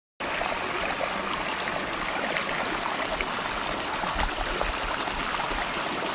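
Stream water running and splashing down a smooth granite rock slab in small cascades, heard close up as a steady rushing. It cuts in abruptly just after the start.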